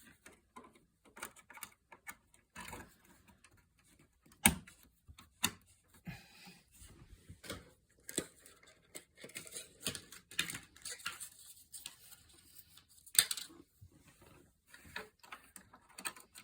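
Clicks, taps and rustling from memory sticks being handled and pushed into the memory slots of a Power Mac G5 Quad, with two sharp, loud clicks, one about four and a half seconds in and one near the end.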